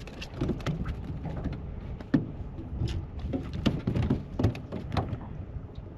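Low wind rumble on the microphone with scattered light knocks and clicks from handling gear in the boat, the sharpest knock about two seconds in.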